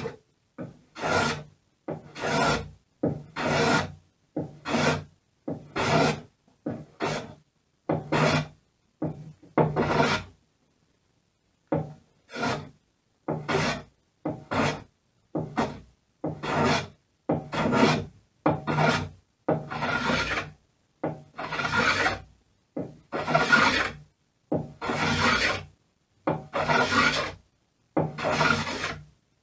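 Hand plane shaving the edge of a plywood rudder, one rasping stroke about every second, with a short pause about a third of the way through.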